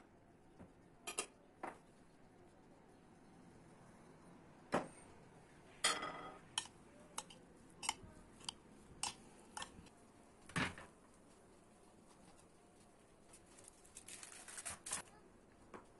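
A metal spoon scraping and clinking against a glass bowl as a wet mixture of chopped tomatoes, peppers, crumbled white cheese and spices is stirred. The clinks come irregularly, with the loudest about six and ten and a half seconds in.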